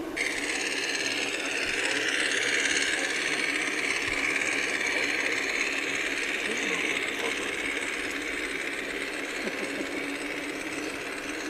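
Garden-scale model train running on outdoor track: a small motorised work car pulling wagons, its electric motor and wheels making a steady whirring rattle. The sound builds over the first couple of seconds and then slowly fades as the train moves away.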